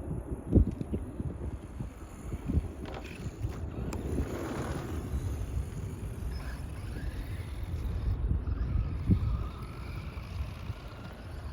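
Wind buffeting the microphone in a low, uneven rumble, with a small electric RC car's motor whining faintly, rising around the middle and again in the second half.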